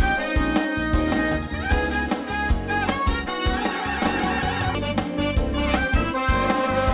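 Background music: an upbeat instrumental track with a steady beat and melodic horn-like lines, no vocals.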